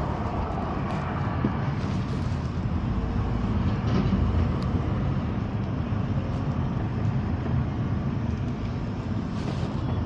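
Steady low rumble of outdoor road and traffic noise, with no distinct events.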